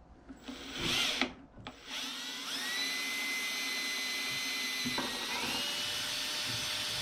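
Power drill boring the MAP sensor hole in a composite MSD Atomic AirForce intake manifold. A short spin about a second in, then a steady whine from about two seconds that rises to full speed, dips slightly around the five-second mark and keeps running.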